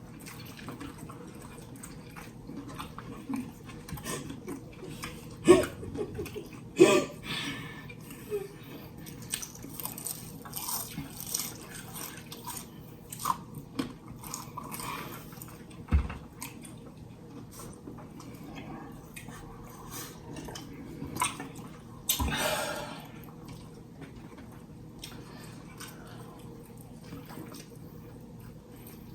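People eating fried chicken close to the microphone: scattered bites, crunches and wet chewing and mouth sounds, with a few louder bites standing out.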